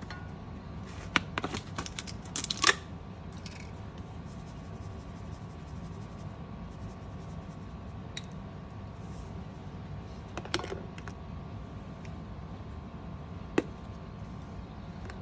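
Seasoning shakers being handled while a steak is seasoned: a quick run of plastic clicks and taps, a few more later, and one sharp tap near the end, over a steady low hum.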